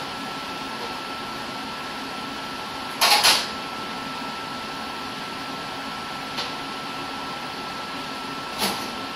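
Steady background hiss with a thin, high, steady whine, broken by a short breathy rush about three seconds in, a faint click, and a smaller breathy rush near the end, typical of a person breathing out.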